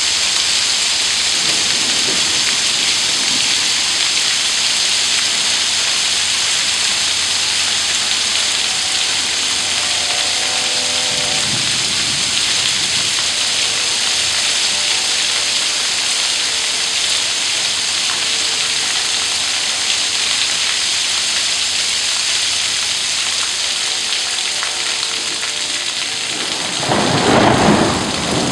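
Heavy thunderstorm downpour of rain and hail, a steady loud hiss on the driveway and roof. Thunder rumbles faintly a couple of times, then a loud roll of thunder swells near the end.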